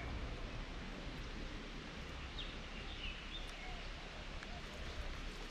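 Quiet outdoor background: a steady low rumble, with a few faint bird chirps around the middle.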